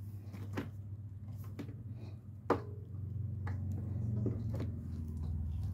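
Short knocks and clicks of a stand mixer's stainless steel bowl and body being handled, the sharpest about two and a half seconds in, over a steady low hum.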